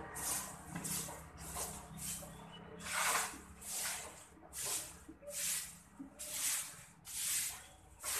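Hands rubbing and kneading a person's skin and clothing in a massage: a steady run of short swishing strokes, about one or two a second.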